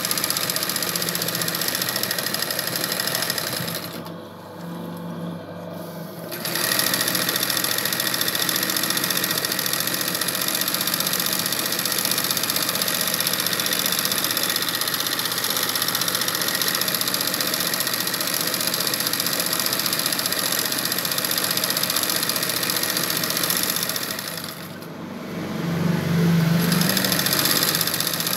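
Sewing machine doing satin-stitch machine embroidery, its needle running fast and steadily. It stops briefly twice, about four seconds in and again near the end, then starts up again.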